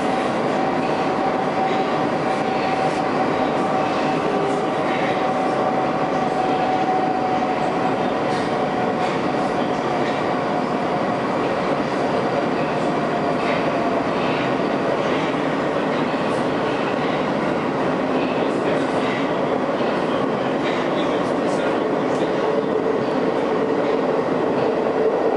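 Moscow Metro subway train running between stations, heard from inside the car: steady rail and running noise with a whine that slowly sinks in pitch over the first half, a lower whine coming in near the end, and scattered light clicks.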